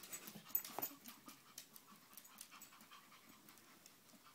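Pomeranian panting quickly while mounting a plush toy, faint, with soft scuffling clicks and rustles that are busiest in the first second.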